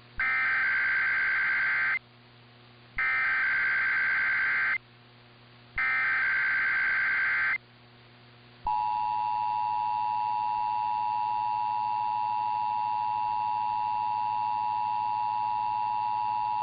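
Emergency Alert System test tones: three bursts of the SAME digital data header, each a little under two seconds long with about a second's gap between. About eight and a half seconds in, the steady two-tone EAS attention signal starts and holds.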